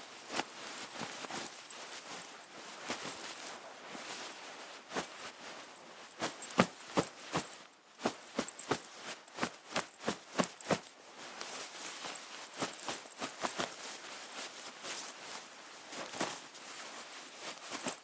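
Coat fabric rustling and being handled up close, a continuous rustle with sharp brushing strikes. The strikes come most densely and loudly in a run of about two a second through the middle.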